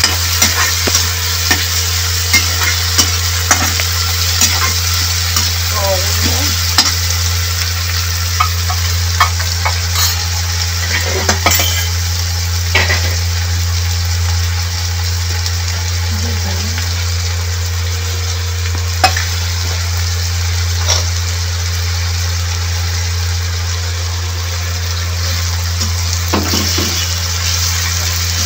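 Chopped onion, tomato and green chilli sizzling as they fry in oil in a pan, with a spatula stirring and clicking against the pan, often in the first part and only now and then later. A steady low hum runs underneath.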